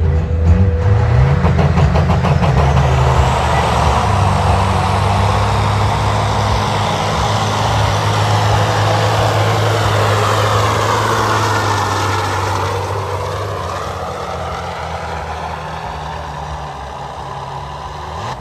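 Diesel semi truck engine under full load, pulling a weight-transfer sled: it revs up at the launch, runs hard and steady, then fades as the truck moves away down the track.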